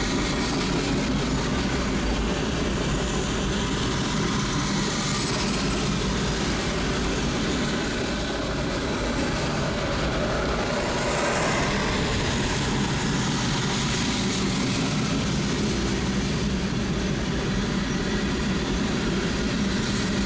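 Freight train rolling steadily through a grade crossing, a continuous rumble of freight cars passing close by.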